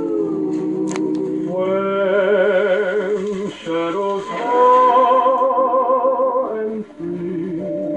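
A vocal record playing on a Crosley CR49 suitcase record player. A singer holds long notes with a wide vibrato over accompaniment, with short breaks between phrases about three and a half and seven seconds in.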